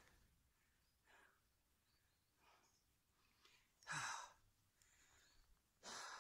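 A man breathing hard, out of breath from working a bow drill: faint breaths, then two loud sighing exhales about four and six seconds in.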